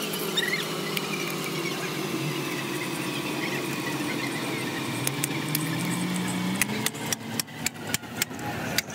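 A vehicle engine runs steadily in the background, its pitch rising slowly past the middle. From about two-thirds in, a rapid run of sharp metallic clicks and clinks as steel tapered roller bearings are handled in a metal bowl.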